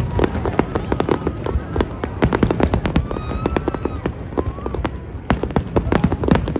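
Fireworks display going off: a rapid, irregular run of sharp cracks and bangs over a continuous low rumble of shells bursting.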